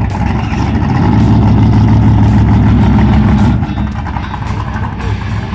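The big-block 460 V8 of a 1972 Ford Gran Torino drag car running loud with a deep, steady rumble, easing off slightly about two-thirds of the way through.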